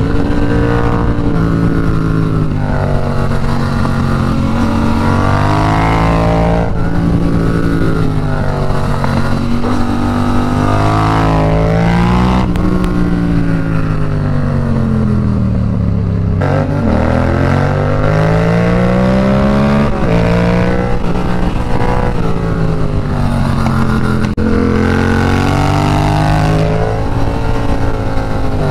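Yamaha FZ-07's parallel-twin engine heard from the rider's seat, its pitch rising and falling again and again as it accelerates out of and slows into curves, with wind rushing on the microphone.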